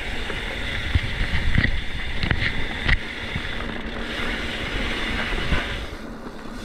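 Mountain bike rolling over dirt trail: steady wind rush on the microphone and tyre rumble, with several sharp knocks and rattles as the bike hits bumps, most between about one and three seconds in.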